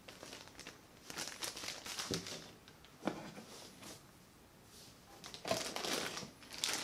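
Clear plastic packaging bags crinkling and rustling in irregular bursts as wrapped microphone parts are handled in a cardboard box with foam inserts, with a light knock about three seconds in and a quieter lull before the rustling resumes.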